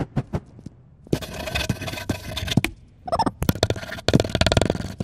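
Pencil scratching on paper in runs of quick drawing strokes, with a short pause about two seconds in.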